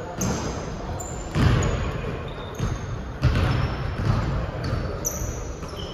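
Basketball bouncing on a hardwood gym floor, with two heavy thuds about a second and a half and three seconds in, and short high sneaker squeaks on the court in between.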